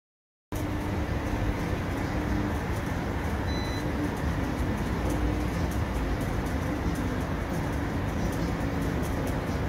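Steady urban road-traffic background noise, heaviest in the low rumble, starting suddenly about half a second in after a moment of silence.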